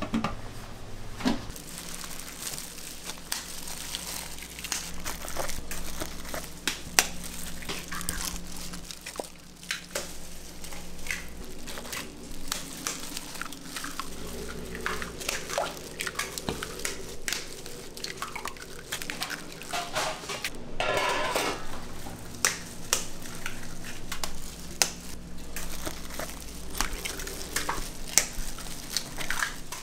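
Raw eggs being cracked by hand one after another against the rims of stainless steel hotel pans: a string of short, sharp cracks and taps with the contents dripping into the pans. A low steady hum runs underneath.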